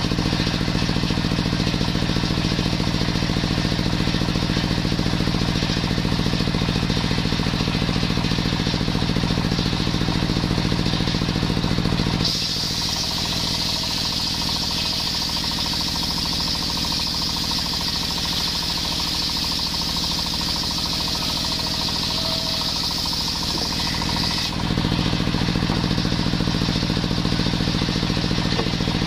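Engine-driven table circular saw running and ripping a coconut-wood beam. For about twelve seconds in the middle the low engine note drops back and a higher hiss comes up, then the first sound returns.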